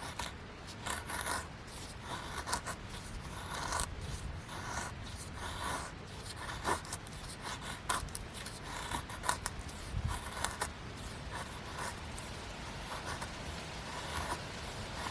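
An irregular series of short scraping, rubbing strokes, close by.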